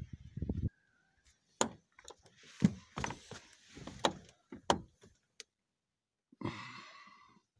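Knocks and thumps of someone climbing into a car's driver's seat. Near the end comes a longer rattling sound that fades over about a second.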